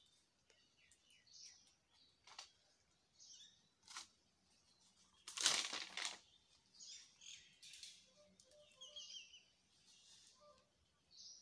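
Small birds chirping on and off in short, high calls, with a few sharp snaps and one louder rustle of leaves about five and a half seconds in.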